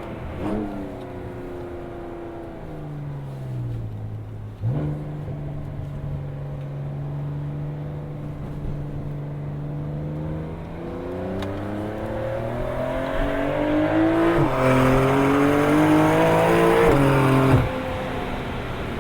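Porsche 992 Carrera S twin-turbo flat-six through a Capristo valved exhaust with 200-cell cats. The engine slows, gives a sharp crack as the revs jump about a third of the way in, then holds a steady note. It then pulls hard, rising in pitch through a gear change, at its loudest just before the revs drop away abruptly near the end.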